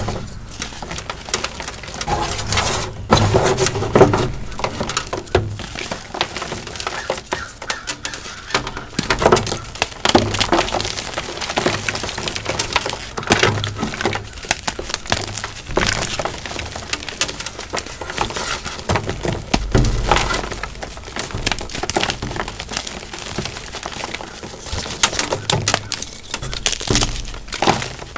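Pasted gym chalk blocks being crushed: rapid, irregular crunching and cracking with frequent sharp snaps.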